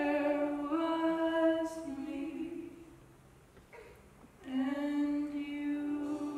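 A solo voice singing long held notes from a stage musical number. The singing fades out about three seconds in and comes back with another long held note about a second and a half later.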